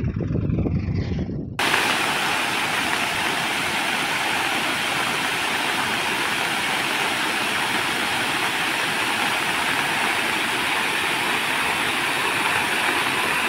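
Water pouring over an overflowing dam spillway: a loud, steady rush of falling water that starts abruptly about a second and a half in, after a brief low rumble.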